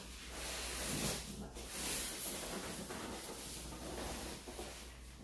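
Large cardboard TV carton being slid up off a plastic-wrapped television in foam end blocks: a continuous scraping rustle of cardboard against foam and plastic, swelling about one and two seconds in.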